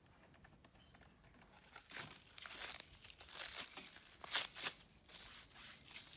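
Plastic cling wrap being handled and pulled off, crinkling and tearing in irregular bursts from about two seconds in, after a few faint clicks.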